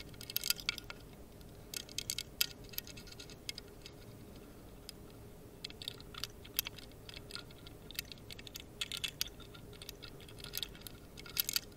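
Light, irregular metallic clicking and ticking of lock-picking tools working inside a MIWA 3800 magnetic lock, in scattered clusters, as the magnetic sliders are probed for rattle.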